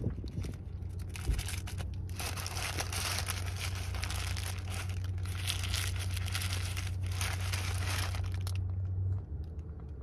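White paper sandwich wrapper crinkling and rustling as hands fold it back from a sandwich, for several seconds, over a steady low hum inside a car.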